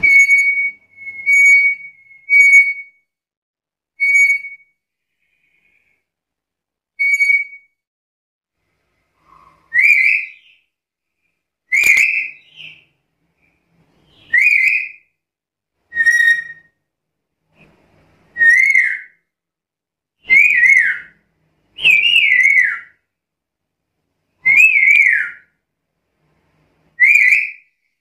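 Black-capped lory whistling. It gives about five short, level whistled notes, then after a pause a series of about nine sliding calls, roughly one every two seconds.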